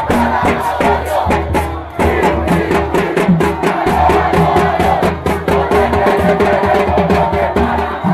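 Stadium fans' drums playing a fast steady beat, with horns sounding held notes over a large crowd cheering and chanting.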